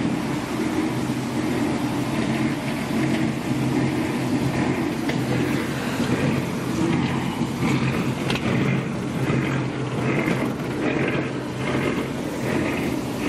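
Rail speeder's engine running steadily with an even hum. From about the middle on, a pulsing sound repeats roughly twice a second over the engine.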